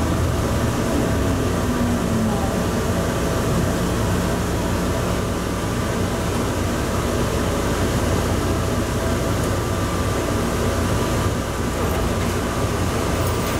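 Rubber-tyred automated people-mover train running at speed through a tunnel, heard from inside the car: a steady rumble of tyres on the concrete guideway with a steady motor hum.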